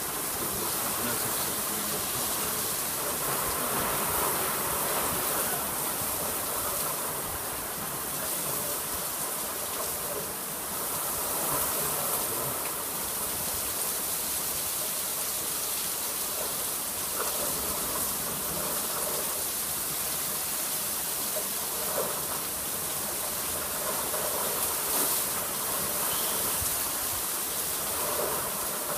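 Rain falling steadily, a constant hiss.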